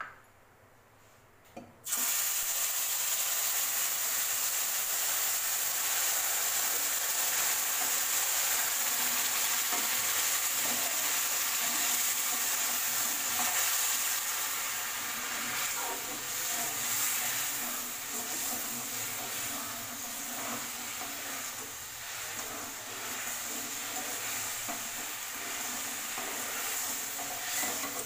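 Water sizzling as it hits hot roasted semolina and sugar in a metal pan: a loud hiss starts suddenly about two seconds in and carries on, easing a little later. Over it, a metal spatula stirs and clicks against the pan.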